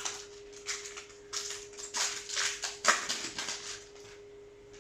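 Foil trading-card booster pack crinkling and being torn open: a run of rustles and rips, loudest about three seconds in, dying away after about four seconds. A steady hum runs underneath.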